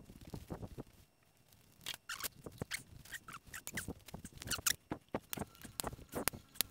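Gloved hands handling car wiring loom, plastic split conduit and connectors: irregular clicks, scrapes and rustles as the wires are worked into place.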